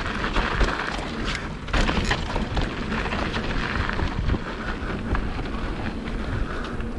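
Mountain bike riding down a rough trail: wind buffeting the action-camera microphone, with knocks and rattles from the bike over the ground.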